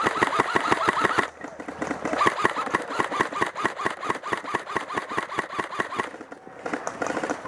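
Airsoft rifle firing full-auto: rapid, evenly spaced shots with a mechanical whir. There is a burst of about a second, then a longer one of about four seconds starting about two seconds in, and a short one near the end.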